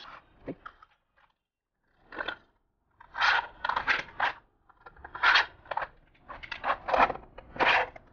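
Aluminium cabinet profile panels being handled and slid against each other on a glass tabletop: a few faint clicks, then from about two seconds in, a run of irregular scraping rubs as the back panel board is fitted to the other panels.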